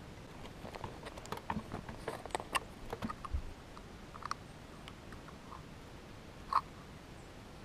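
Small clicks and scratches of hands handling fishing tackle and a small plastic bait jar, thick for the first three seconds and then sparse, with one sharper click about six and a half seconds in.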